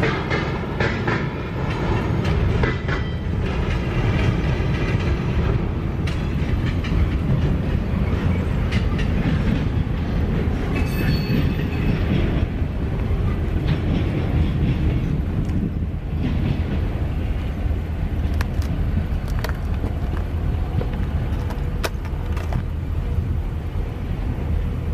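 Railroad cars rolling by on the tracks: a steady low rumble with irregular clicks from the wheels, and brief high squeals near the start and about eleven seconds in.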